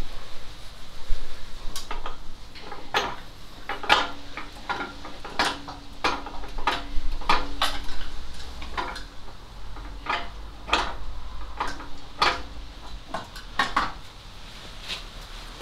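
Metal tools and parts clinking and knocking against one another in irregular sharp taps, some leaving a brief metallic ring.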